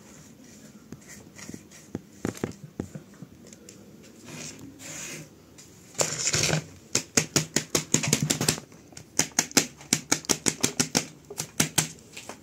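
Hands pressing and brushing gritty potting mix with white perlite-like grit around a succulent in a plastic pot. At first there are only a few soft scrapes; then, about halfway through, comes a long run of quick crunching and rustling strokes.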